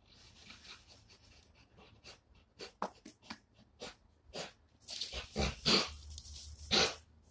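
Blue nose pit bull breathing hard in short, sharp huffs through its nose while its jaws stay clamped on a hanging rope toy. The huffs come irregularly, faster and louder over the last few seconds.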